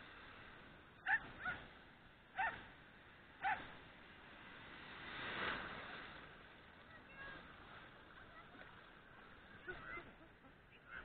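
A dog giving short, sharp, high yelps, four in the first few seconds, then a few fainter rising whines near the end. About five seconds in comes a brief rush of noise.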